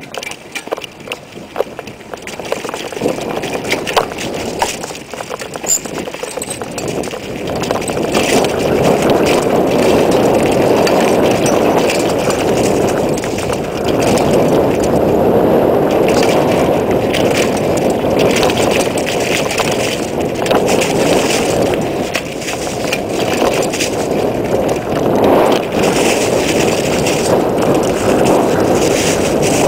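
Mountain bike ridden fast down a dirt trail over grass and dry leaves: tyres rolling and the bike rattling and clicking over bumps. Wind rushes over the microphone and becomes loud and steady from about seven seconds in as speed builds.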